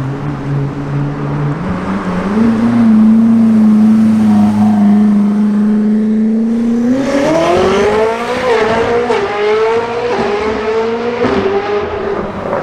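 Koenigsegg Jesko Attack's twin-turbo V8 running at a steady, loud pitch for the first half. About seven seconds in it pulls hard, its pitch rising sharply and then stepping through several quick upshifts under full acceleration. A few sharp exhaust cracks come at the very end.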